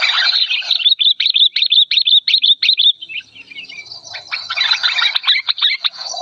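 Sooty-headed bulbul calling loudly in an agitated chatter: a quick run of clear notes, then after a short pause a denser burst of harsh, choppy notes.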